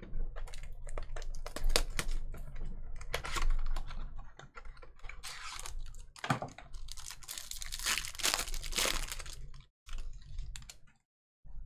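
Trading card pack being opened and the cards handled: quick clicks and taps of cards, with plastic wrapper crinkling and tearing in two longer stretches in the middle and second half.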